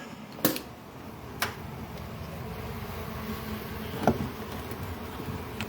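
Honeybees buzzing steadily around an exposed hive, with a few sharp clicks and taps of handling nearby.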